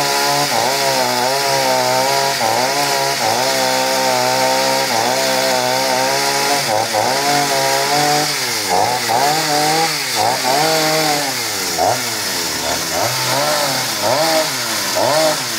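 Stihl MS 250 two-stroke chainsaw cutting a fallen tree trunk at high revs, its engine pitch repeatedly dipping and recovering as the chain bites into the wood. In the second half the dips come more often, several a second apart.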